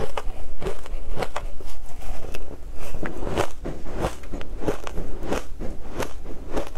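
Crushed ice being chewed and crunched between the teeth, a steady run of sharp crunches at about two a second.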